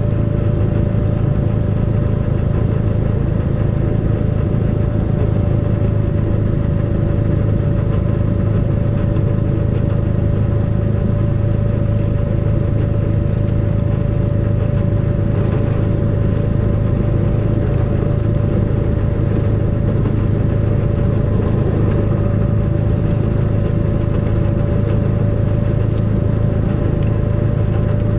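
Snowplough vehicle's engine running steadily, a low hum with a steady whine above it, unchanging throughout.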